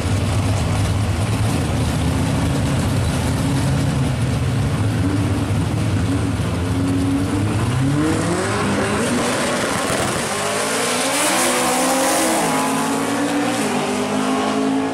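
Two drag cars' engines, a classic Ford Mustang and a Ford Thunderbird, running loudly at the starting line, then launching about eight seconds in. The engine pitch climbs and drops back at several gear changes as they accelerate away down the strip.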